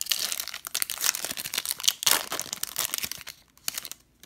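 A trading-card pack's foil wrapper crinkling and tearing as it is ripped open. The dense crackling lasts about three and a half seconds, then gives way to a few short rustles near the end as the cards come out.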